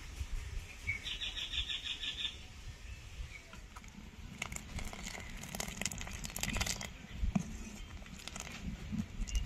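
Sago and milk pudding simmering in a pan while a ladle stirs and lifts it: soft crackles and clicks from about four seconds in. A short, rapid bird trill about a second in.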